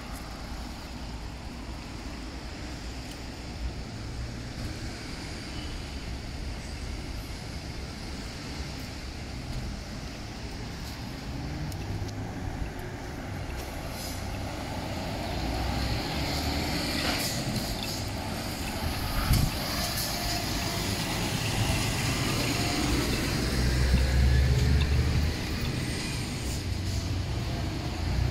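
Road traffic on a city street: a steady rumble of passing vehicles, growing louder in the second half as a vehicle passes close by.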